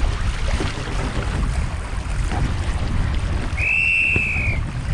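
Gusty wind buffeting the deck-mounted camera's microphone over water rushing and splashing along the hull of a Streaker sailing dinghy under way. About three and a half seconds in, a single high whistling tone sounds for about a second.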